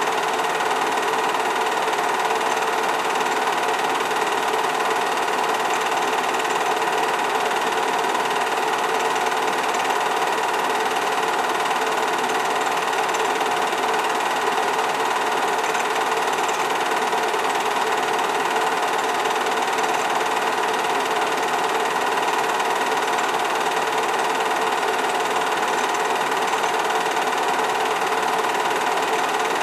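Film projector running steadily, an even mechanical whir from its motor and film transport, as heard on the sound of a silent home-movie film being played back.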